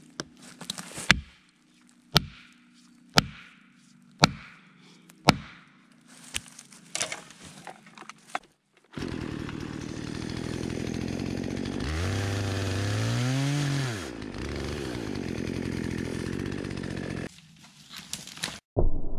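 Axe blows driving a felling wedge into a cedar's cut, one sharp strike about every second. About nine seconds in a chainsaw cuts into the trunk for some eight seconds, its engine speed rising and falling partway through, then stops, and a few sharp cracks follow near the end as the tree starts to tip.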